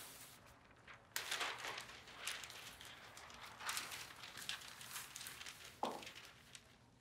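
Large sheets of printmaking paper rustling as they are handled and smoothed down by hand on a press bed, in uneven swishes, with a short knock near the end.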